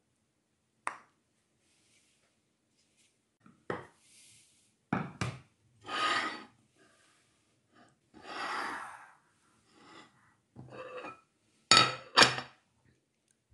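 Wooden spoon knocking and scraping against a pot and a small bowl as cooked rice is scooped and pressed in, with short rustling scrapes; near the end dishes are set down on a stone countertop with two sharp knocks.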